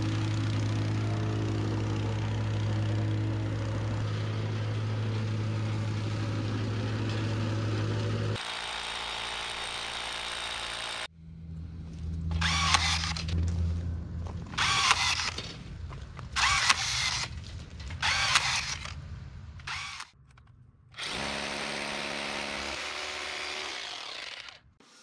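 Gas plate compactor engine running steadily while compacting the gravel base, for about the first eight seconds. Then a cordless drill spun in about five short bursts, each about a second, twisting wire ties on the rebar grid. Near the end a power drill runs steadily for a few seconds.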